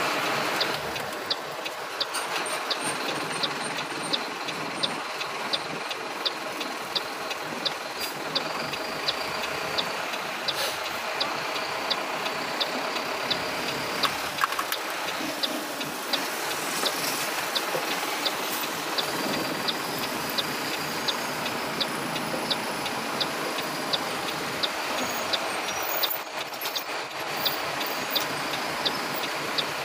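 Vehicle driving through city streets: steady engine and road noise, with a regular ticking throughout.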